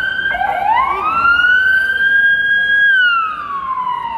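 A siren wailing: its pitch drops and climbs again just after the start, holds high for about two seconds, then slides down about three seconds in.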